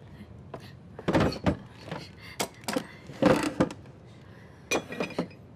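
A series of separate thumps and knocks, about eight in all, from wooden objects being handled; the last two, near the end, come as a wooden crate is opened.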